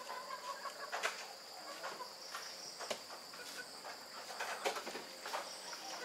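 Steady high-pitched chorus of insects, with a few faint clicks and brief calls scattered through it.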